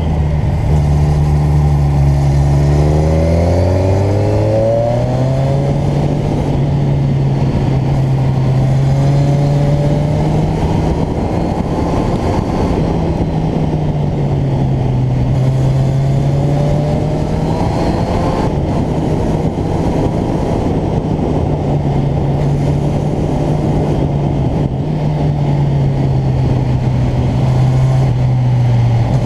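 Motorcycle engine running under way, with a heavy rush of wind noise. Its pitch climbs sharply about three seconds in as it accelerates, then rises and falls gently with speed through the bends.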